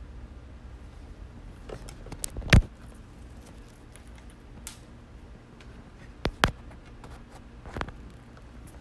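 A few sharp clicks and knocks of audio gear being handled, one loud knock about two and a half seconds in, a close pair a little after six seconds and a lighter one near eight, over a low steady hum.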